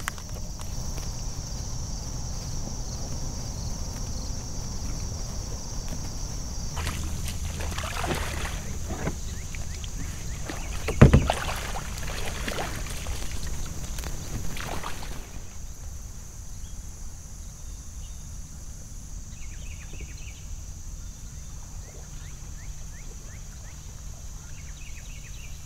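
Kayak being paddled: paddle strokes and water noise, with one loud knock about eleven seconds in, quieter from about halfway on. A steady high insect drone runs underneath.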